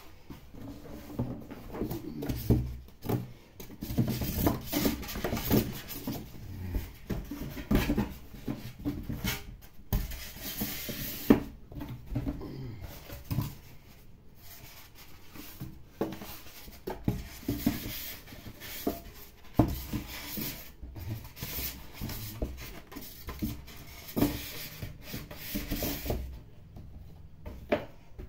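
Packaging being handled: a styrofoam insert and cardboard box rubbing, scraping and knocking irregularly as flaps are opened and folded.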